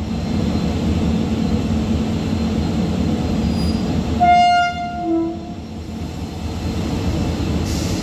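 Goods train of tank wagons rolling along the track, a steady rumble of wheels on rails. A train horn sounds about four seconds in: a short higher blast followed by a lower one.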